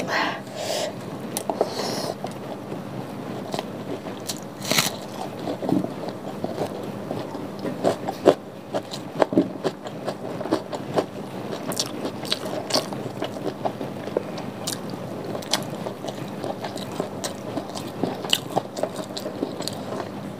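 Close-miked eating by hand: chewing and crunching of cassava fried rice (nasi goreng tiwul), with many short crisp clicks and fingers scraping the stainless steel bowl.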